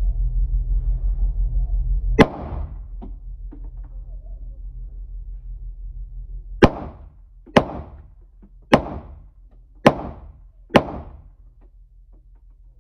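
Handgun shots in an indoor firing range, each with a short echo: one shot about two seconds in, then five more at about one-second intervals. A low throbbing hum fills the first two seconds and stops at the first shot.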